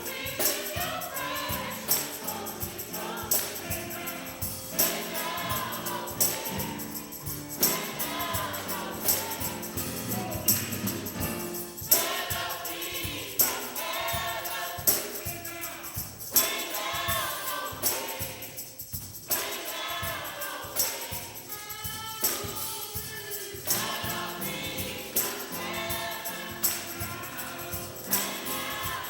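Gospel music: a choir singing over a steady percussion beat.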